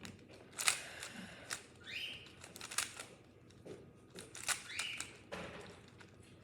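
Maglev speedcube being turned during a solve: the plastic layers snap and click in an irregular run, with a few brief scraping turns between the clicks.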